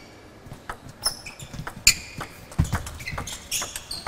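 Table tennis serve and rally: the ball clicking sharply off the rackets and table in quick succession, the loudest hit about two seconds in, with players' shoes squeaking on the court floor.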